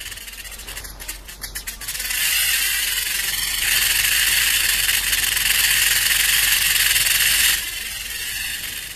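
Rattlesnake shaking its rattle in warning: a few separate clicks that run together about two seconds in into a steady high buzz. The buzz drops off sharply about seven and a half seconds in, leaving a fainter buzz.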